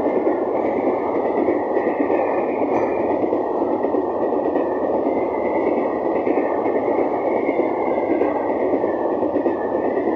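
Freight train of steel hopper wagons rolling past close by: a steady, continuous rumble of wheels running on the rails.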